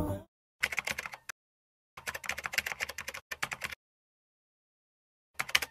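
Computer keyboard typing sound effect: three runs of quick key clicks, the first about a second in, a longer run in the middle and a brief one near the end, with dead silence between them.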